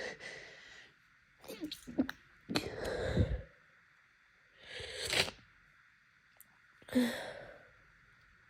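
A woman's allergy sneeze build-up: short breaths and sneezes in about five separate bursts. The loudest come about three seconds in and about seven seconds in.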